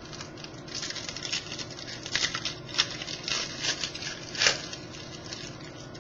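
Baseball trading cards being handled and flipped: a run of crinkling and sharp little clicks, loudest about four and a half seconds in.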